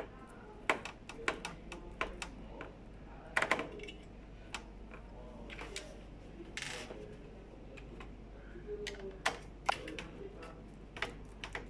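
Irregular sharp clicks and knocks of a screwdriver and hands working on a laser printer's metal side frame and plastic parts while its screws are being taken out, with one short scrape about two-thirds of the way through.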